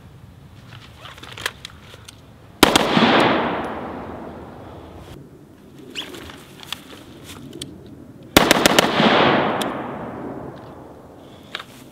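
Rifle fire: two quick strings of shots about six seconds apart, the second with several rounds in rapid succession. Each string echoes away over about two seconds.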